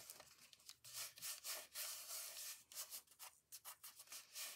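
Hands rubbing over a freshly glued, folded paper pocket to press the glued flaps down: a faint, fast run of dry, scratchy paper-rubbing strokes.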